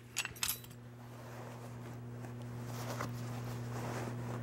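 Metal netting needles and wooden gauge blocks set down on a carpeted floor with a couple of light clicks. Soft handling noise follows over a steady low hum.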